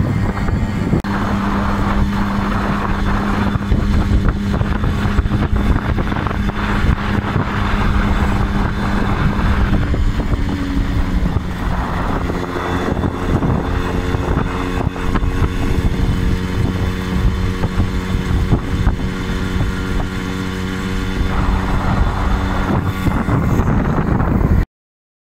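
Jawa Babetta 210 moped's 50 cc two-stroke single-cylinder engine running under way, with wind buffeting the microphone. The engine note changes about halfway through, and the sound cuts off abruptly just before the end.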